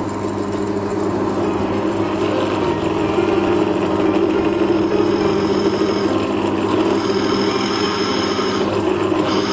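8-inch benchtop drill press with a 450 W motor running steadily, a continuous mechanical hum and whir.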